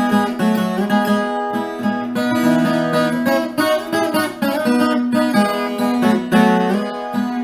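Background music: acoustic guitar played with strummed and plucked chords.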